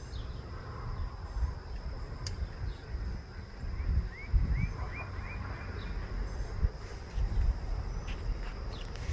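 Outdoor dawn ambience: a steady high-pitched insect trill, four short rising bird chirps about midway, and an uneven low rumble underneath.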